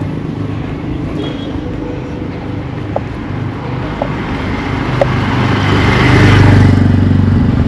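Motor vehicle traffic: an engine runs steadily, and a vehicle passes close, growing loudest about six to seven seconds in.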